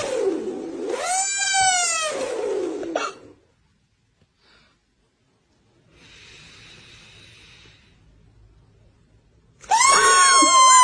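A man snoring with his mouth taped shut, the breath forced out through his nose as a long, high wailing squeal that slides down and back up in pitch. It stops about three seconds in, a faint breath hiss follows after a pause, and another squealing snore starts near the end.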